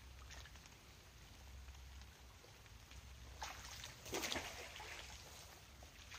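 Magnet fishing rope rustling and swishing as it is swung and thrown out over the water, with a short noisy rush a little past the middle.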